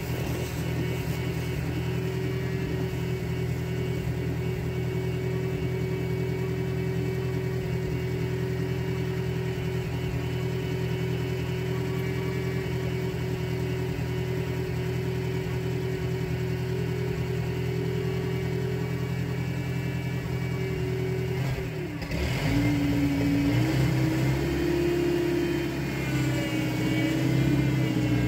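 Skid steer engine running at a steady speed, then about 22 seconds in dipping briefly and revving up higher, its pitch wavering up and down after that.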